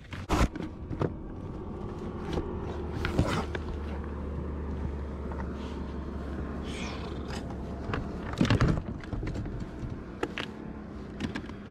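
Knocks and clatter of gear being handled on a plastic fishing kayak, with a low steady hum for several seconds in the middle from the bow-mounted electric trolling motor. The loudest knock comes about eight seconds in.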